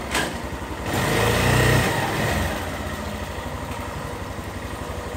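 Bashan Storm 250cc dual-sport motorcycle's engine running through its exhaust with the catalytic converter gutted and the carburettor left on stock jetting. A short click at the start, the engine note swells for about a second, then settles into a steady rapid throb.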